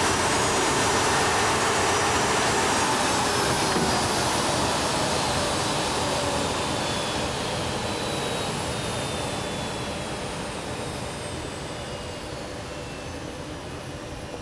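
Business jet's engines winding down on the ground: a steady jet roar that slowly fades, with high whines gliding downward in pitch.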